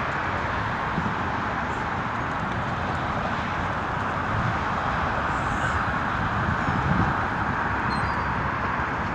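Steady outdoor background noise, with a few faint high chirps about eight seconds in.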